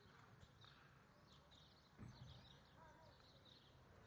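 Near silence: faint small birds chirping repeatedly in the background, with a brief low thud about halfway through.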